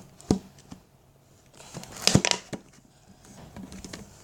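Handling noises close to the microphone: a sharp knock about a third of a second in, then a short cluster of clicks and crinkling about two seconds in.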